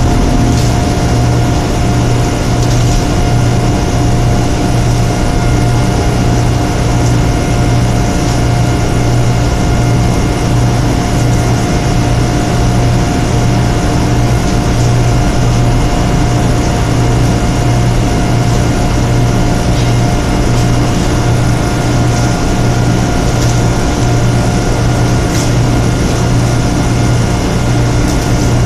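A machine running steadily: a low throb pulsing at an even rate under a constant whine of several steady tones.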